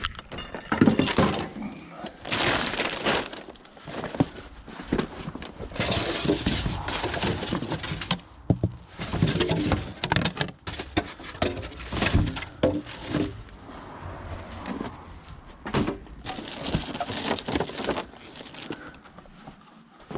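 Scrap being handled and loaded: a run of clattering, knocking impacts with bursts of rattling and scraping.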